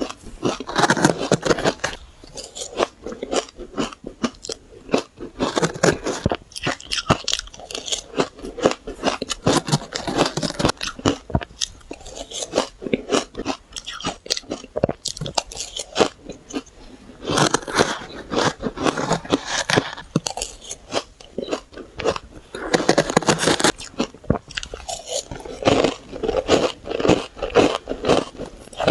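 Close-miked bites and chewing of powdery shaved ice: dense crunching and crackling in repeated clusters.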